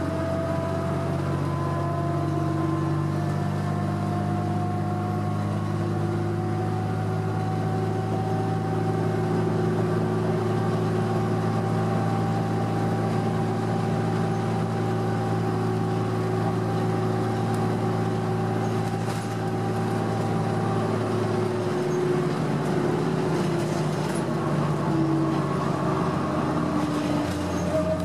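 Interior of a 2006 Orion VII diesel transit bus cruising on a highway: the Cummins ISL diesel engine and Allison B400R driveline hum steadily, with road noise and a whine that rises slowly over the first ten seconds. The low engine note thins out about 22 seconds in.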